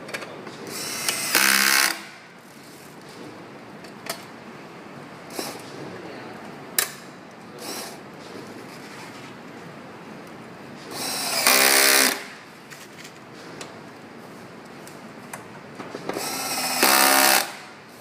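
Small electric screwdriver driving screws during a motherboard and battery replacement, whirring in three short runs of about a second each, with light clicks of tools and parts between.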